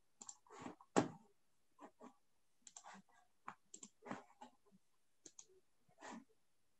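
Irregular, faint clicks and taps of a computer keyboard and mouse, with one louder knock about a second in.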